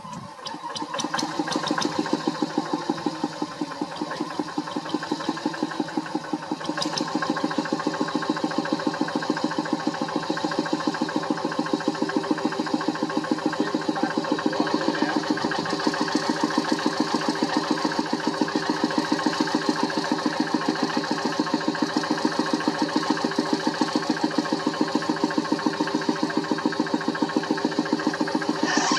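Single-cylinder Kubota diesel engine of a two-wheel hand tractor running steadily with an even, regular chug. It grows louder over the first second or two, then holds.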